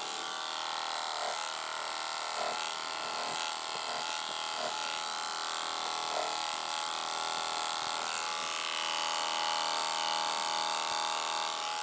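Electric GROOMER.DK dog-grooming clipper buzzing steadily as it clips the hair on a miniature schnauzer's ear.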